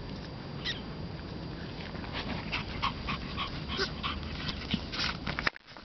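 Small griffon dogs yipping and whimpering in play: a rapid run of short, high yips from about two seconds in, cut off abruptly near the end.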